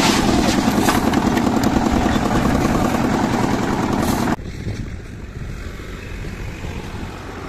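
Concrete mixer's diesel engine running steadily, with a few short scrapes of shovels in the concrete pile. About four seconds in it cuts off suddenly, leaving a much quieter outdoor background.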